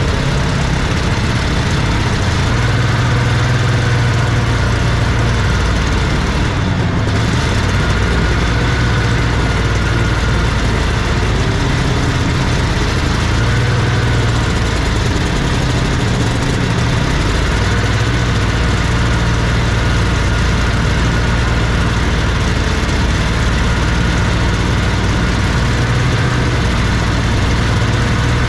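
Vintage Scorpion snowmobile's two-stroke engine running steadily at low speed as the sled travels, its pitch rising and falling slightly.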